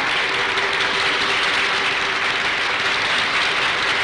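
A crowd applauding steadily, with a faint steady hum underneath.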